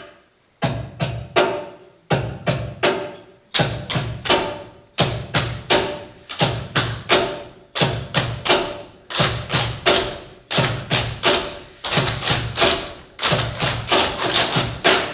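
Cajon played in a rhythm that grows busier, deep bass strokes and sharp slaps, together with the clatter of clogging shoe taps on the stage. The beats start about half a second in.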